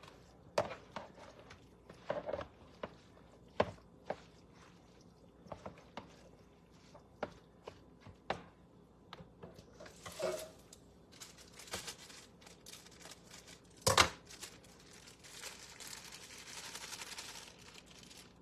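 Kitchen work noises: scattered clicks and knocks of utensils and dishes on a counter, one louder knock about fourteen seconds in, and a couple of seconds of hiss near the end.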